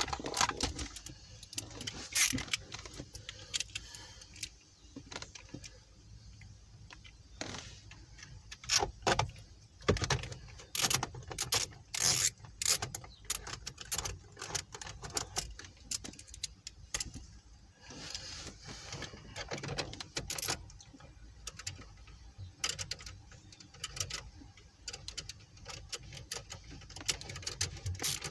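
A small socket ratchet clicking in short, irregular bursts, mixed with metal tool and bracket clatter, as the radio's mounting screws are driven back in.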